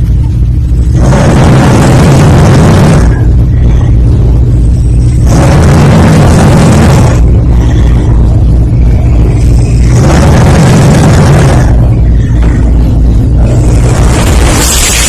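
A person snoring very loudly: a harsh, rasping snore on each breath, four times at intervals of about four to five seconds, with a low rumble carrying on between the snores.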